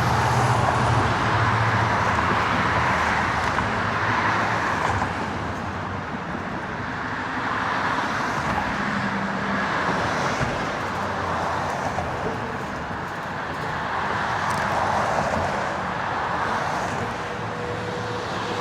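Road traffic passing: tyre and engine noise that swells and fades as vehicles go by, loudest near the start and again about three quarters of the way through.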